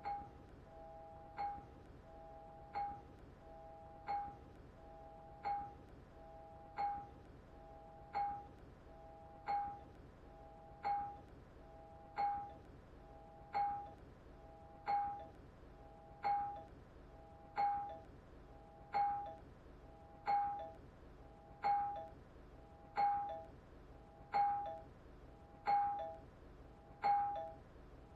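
Doorbell ringing over and over, about once every second and a half. Each ring is a sharp strike followed by a short ringing tone that quickly dies away.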